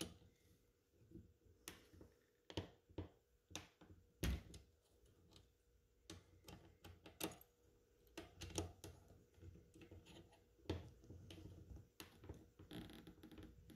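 Faint, irregular metal clicks and light knocks from an M10 cleaning rod handle (combination tool) turning the gas cylinder lock screw of an M1 Garand rifle, a steel rod section through the handle serving as a T-handle. The loudest knock comes a little over four seconds in.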